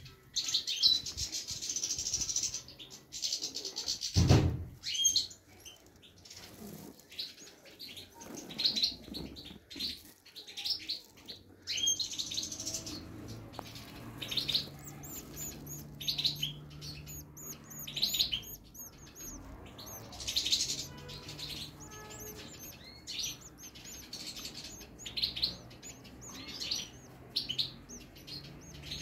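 European goldfinch chicks in the nest giving rapid, high-pitched chirping begging calls in repeated runs, with a single brief low thump about four seconds in.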